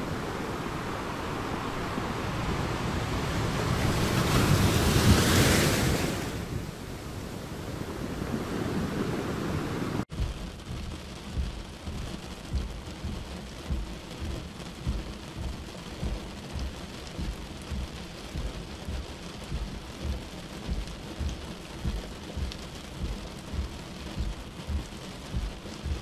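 Stormy weather ambience: a steady roar of rain and wind that swells to its loudest about five seconds in. After a sudden cut about ten seconds in comes rough, churning sea, with low surges of water at a fairly even pace, about one and a half a second.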